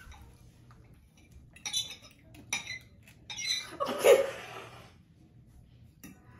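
Metal forks clinking and scraping against dinner plates several times, with a louder, noisier sound lasting about a second around four seconds in.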